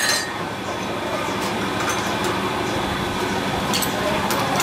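Large metal-turning lathe with a truck rim in its chuck, running with a steady mechanical hum, and a couple of sharp metal clinks from tools at the tool post.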